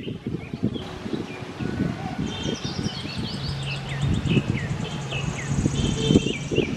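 Small birds chirping, with many short falling calls and a fast high trill, over close rustling and soft mouth sounds of fingers being licked clean of wood apple mash.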